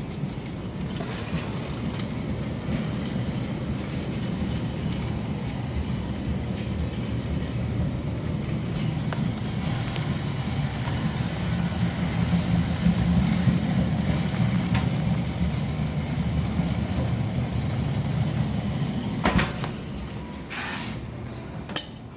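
A steady low machine hum, a little stronger in the middle stretch, then two sharp knocks near the end.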